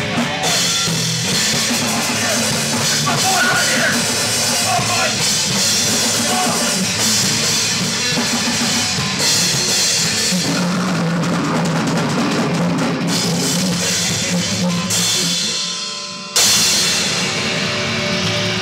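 A metalcore band playing loud and dense: a Tama drum kit with bass drum and cymbals under distorted electric guitars and bass through amplifiers. Near the end the sound dies away for about a second, then the whole band crashes back in at once.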